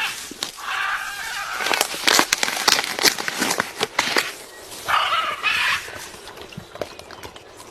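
Parrot giving two short, raspy calls, with a dense run of sharp clicks and smacks between them as it works at jelly water with its beak and tongue.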